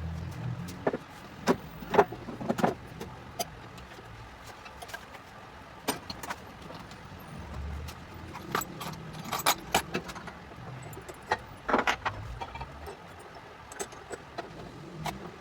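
Irregular light clicks and knocks, as of wooden pieces and small hand tools being handled and set down on a workbench.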